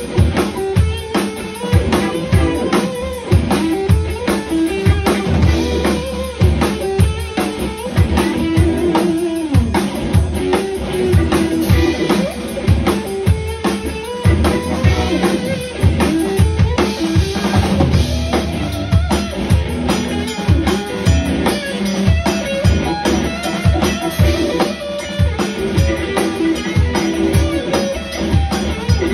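An instrumental band playing live: a drum kit with busy kick and snare hits drives the music, under electric guitar and keyboard.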